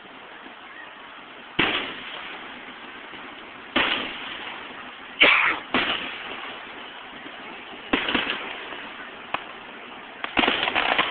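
Fireworks shells bursting: about six sharp bangs at irregular intervals, each dying away in a short echo, with a quick crackling run of bangs near the end, all over a steady background hiss.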